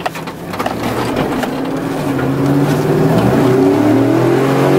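Chevrolet 2500 HD pickup's 6.0 Vortec V8 accelerating, heard from inside the cab. The engine note climbs steadily in pitch and grows louder through the second half.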